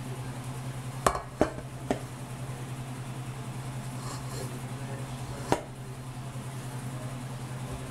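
A pan and utensil knocking against a stainless steel mixing bowl as a sweet potato mixture is scraped in: three sharp clinks close together about a second in and one more a little past halfway, over a steady low hum.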